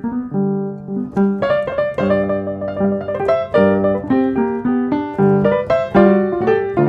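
Background piano music: a steady run of struck notes, several at a time, each starting sharply and fading.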